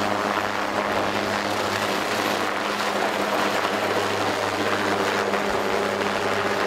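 MQ-8 Fire Scout unmanned helicopter flying past, its rotor and turboshaft engine running with a steady droning hum at an even pitch.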